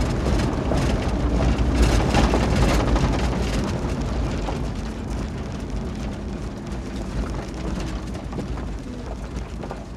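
A 2020 Kia 4x4 driving on a loose gravel dirt road, heard from inside the cab: a steady low road and engine rumble with dense crackling of tyres on stones. It grows quieter over the second half.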